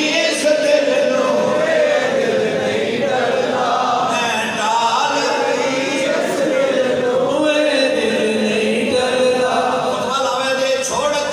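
Men's voices chanting together in a slow devotional refrain, one long melodic line that rises and falls without a break.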